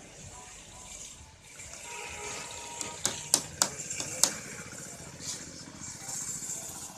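Sharp clicks and knocks of PVC door parts being handled and fitted by hand, about five in quick succession near the middle, over a steady hiss.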